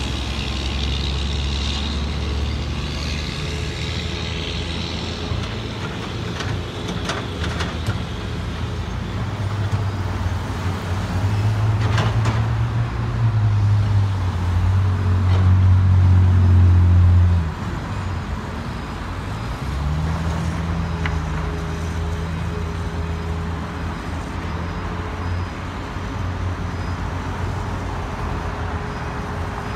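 Caterpillar hydraulic excavator's diesel engine running as it digs and loads soil, the drone growing louder for several seconds past the middle and then dropping off abruptly, before picking up again on a higher steady note. A few sharp clanks come through early on and near the middle.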